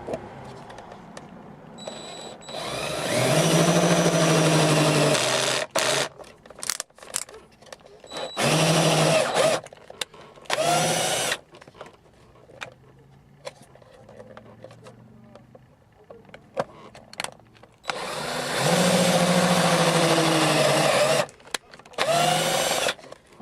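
Power drill driving self-tapping screws to fit the aluminum replacement console hinge pieces, run in five starts and stops, the longest about three seconds, with short clicks of handling between them.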